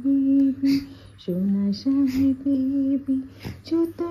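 A woman humming a slow tune in short phrases of held notes, with a lower note a little over a second in.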